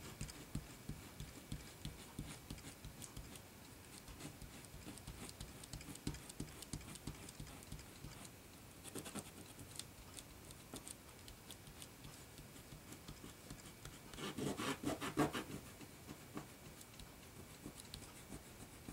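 Cloth rubbing and scratching over a plastic stencil laid on an alcohol-inked foil tag, wiping ink off through the stencil openings. It is faint and patchy, with a louder stretch of rubbing about three-quarters of the way through.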